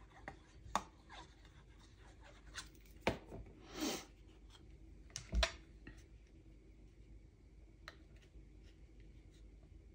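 Cardstock and a liquid glue bottle being handled on a glass craft mat: a few light knocks and taps, the loudest about three and five and a half seconds in, with a short paper rustle between them as a glued paper panel is laid on the card and pressed down.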